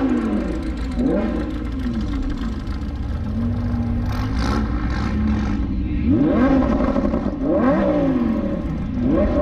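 Lamborghini Huracán's V10 being revved in short blips over a low idle, each rev rising quickly in pitch and dropping back, several times, with a cluster of revs in the last few seconds.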